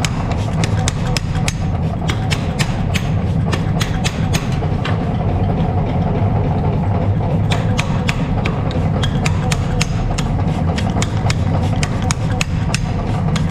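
Hammer blows on steel, many sharp knocks a second at an uneven pace, over a steady low hum.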